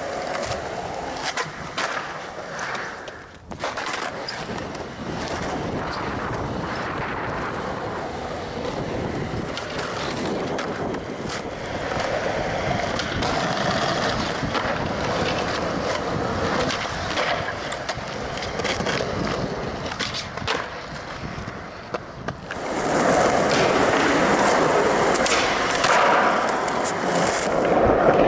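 Skateboard wheels rolling over smooth concrete, with sharp clacks of the board popping and landing tricks. The rolling gets louder about 23 seconds in.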